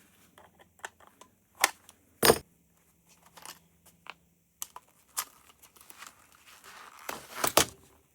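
Hand tools and metal parts clicking and knocking during disassembly of a mobility scooter part, in scattered irregular strokes. A louder knock comes a little over two seconds in, and another cluster of knocks comes near the end.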